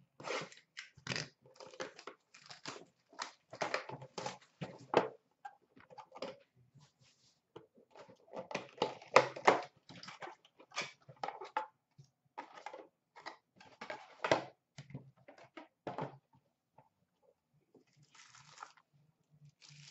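Packaging being torn and crinkled off a boxed hockey puck, then the box being opened by hand: a run of irregular crackling and rustling strokes that thins out near the end.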